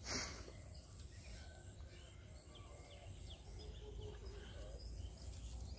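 Open-field ambience: a steady low rumble with faint, scattered bird chirps, and a brief burst of noise just after the start.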